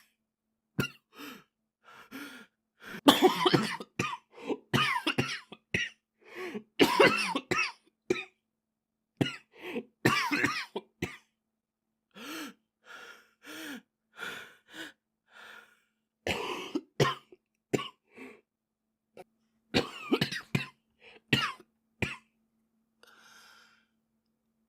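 A boy coughing over and over in fits of several short coughs each, with pauses of a second or more between the fits.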